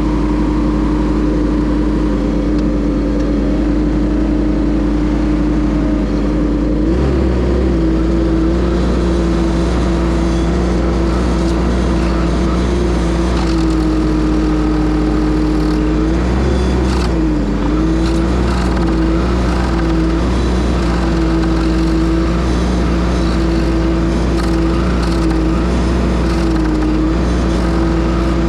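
Case TL100 mini skid steer engine running steadily at high speed while it drives a Toro stump grinder attachment. Its pitch steps up about a quarter of the way in and dips briefly a few times near the middle.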